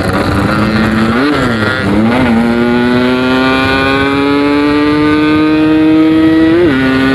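Yamaha RX-King 135cc two-stroke motorcycle with a 'packing power' exhaust, ridden under way. Its pitch flicks up and back down twice early on, then climbs slowly and steadily as the bike pulls through a gear, and near the end flicks up and drops as the next gear is taken.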